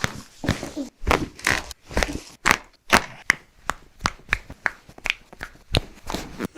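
Rapid series of sharp cracks and pops, about three to four a second, of joints cracking under chiropractic adjustments.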